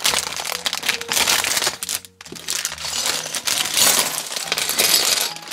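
Plastic Lego polybag being torn open and crinkled, with small plastic bricks tipping out of it onto a table. Dense crinkling with a short pause about two seconds in.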